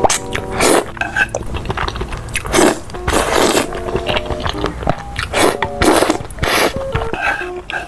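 Close-miked eating: repeated bites and crunchy chewing of spicy food, a series of short noisy crunches. Soft background music notes play between them.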